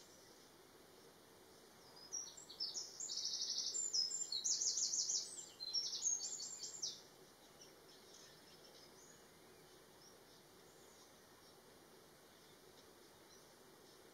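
A small songbird sings a fast, high-pitched run of repeated chirping notes in several phrases, lasting about five seconds from about two seconds in, over faint outdoor background hiss.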